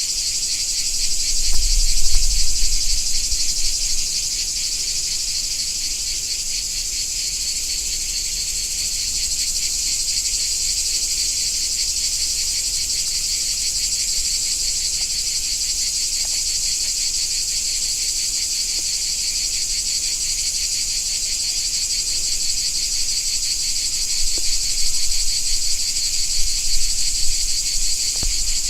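A steady, dense chorus of cicadas buzzing in the summer heat, high-pitched with a fast pulsing texture. Brief low rumbles come about two seconds in and again near the end.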